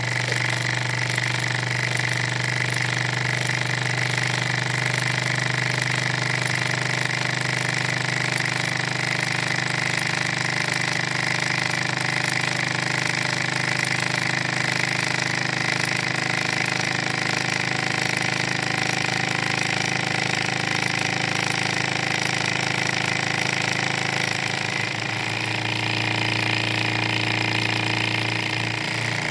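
Wiggers Stiwi2 Stirling engine running steadily at speed, a constant mechanical running noise with a steady hum; the tone shifts slightly about 25 seconds in.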